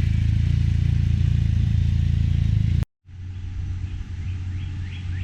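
Can-Am Ryker Rally engine idling steadily, then cut off abruptly about three seconds in. After that, quieter open-air background with a few short bird chirps.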